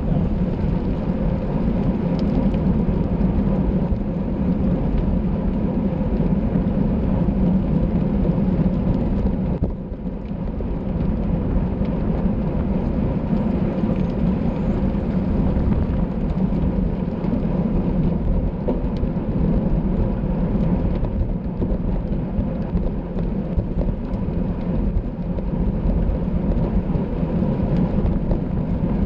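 Wind buffeting the microphone of a camera on a road bike at racing speed: a steady, loud, low rumble that eases briefly about ten seconds in.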